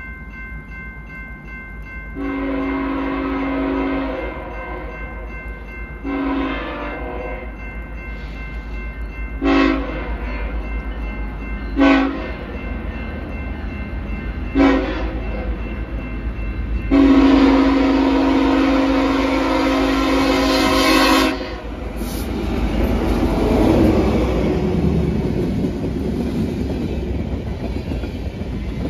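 Freight train's diesel locomotive air horn sounding a chord in six blasts: a long one about two seconds in, a shorter one, three short toots, then a long blast of about four seconds, over the steady low rumble of the locomotives. After the last blast the train runs past with a swelling rush of wheel and engine noise.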